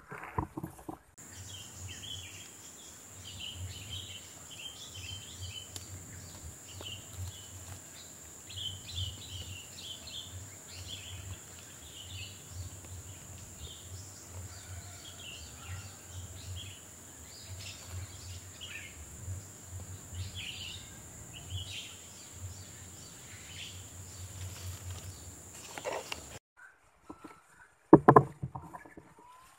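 Small birds chirping in the forest canopy over a faint steady hiss. Near the end comes a single loud, sharp shot from a scoped hunting rifle.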